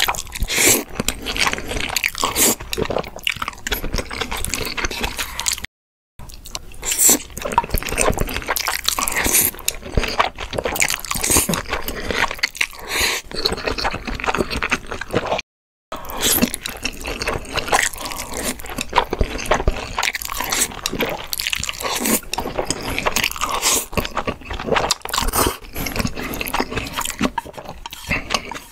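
Close-miked mukbang eating sounds: slurping and chewing black bean noodles (jjajangmyeon), with wet smacking and crunchy bites. The sound drops out twice into brief silence.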